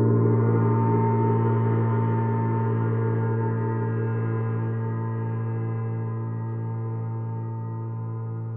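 Paiste Sidereal Moon planet gong ringing on from a strike just before, a deep hum with many overtones above it that slowly fades. The lower tones waver in slow, even pulses.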